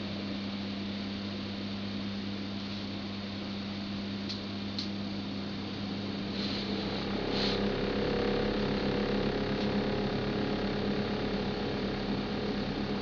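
Samsung refrigerator running with a steady low hum. About seven seconds in it gets louder, adding a higher drone and a low rumble, with a few faint ticks just before.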